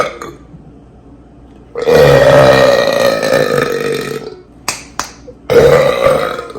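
A man's long, loud burp lasting about two and a half seconds, then two sharp clicks and a shorter second burp near the end.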